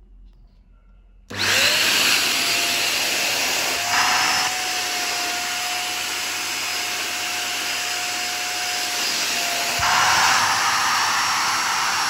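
A 600 W 2-in-1 upright vacuum cleaner, used as a handheld with its crevice nozzle on a fabric sofa cover, is switched on about a second in: its motor whine rises and settles into a steady high whine over a rush of noise. It gets briefly louder twice, about four seconds in and again near ten seconds.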